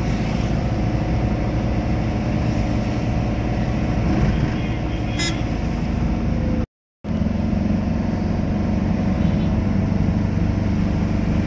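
Car engine and tyre noise heard from inside the cabin while driving along a highway: a steady low drone. The sound drops out completely for a moment about seven seconds in.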